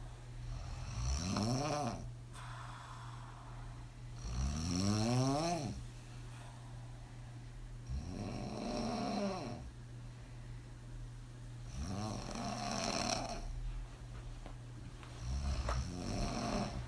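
A woman on her back snoring hard after several drinks: five snores about every three to four seconds, each rising and then falling in pitch.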